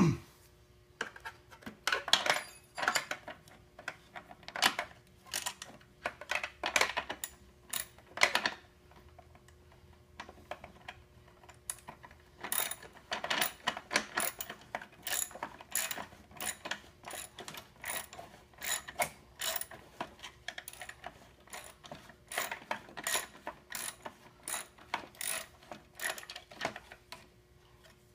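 Irregular sharp clicks and clinks of small hard parts and tools being handled during a repair, some in quick runs, over a faint steady hum.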